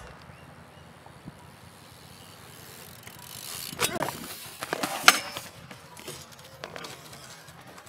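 Faint background, then a BMX bike's tyres rolling on concrete and a crash: several sharp clattering knocks as the bike and rider hit the concrete, the loudest about five seconds in, with a few smaller knocks after.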